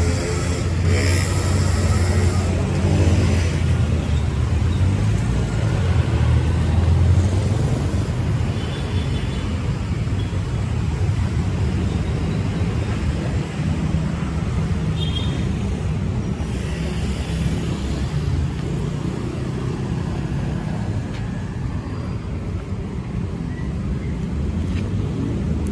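Street traffic: a vehicle's engine running loud and low close by for about the first seven seconds, then a steady wash of passing traffic.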